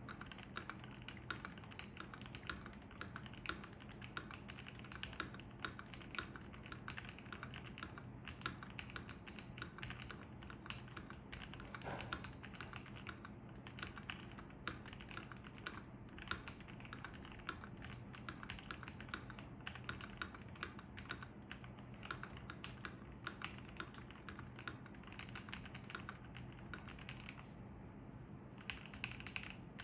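Stock Asus ROG Azoth gasket-mounted mechanical keyboard, with pre-lubed ROG NX Red linear switches and double-shot PBT keycaps, being typed on in a fast, continuous run of keystrokes, with a brief pause near the end.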